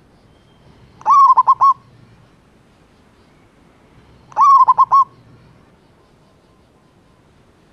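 Male zebra dove (perkutut) cooing: two calls about three seconds apart, each a rising note that breaks into a quick run of rolling coos. This is its song to attract a female.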